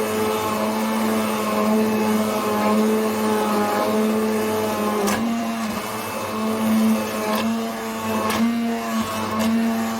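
Hand blender running in a pot of garlic and potato soup, mixing in fresh cream: a steady motor whine whose pitch dips briefly now and then, with a few sharp knocks in the second half.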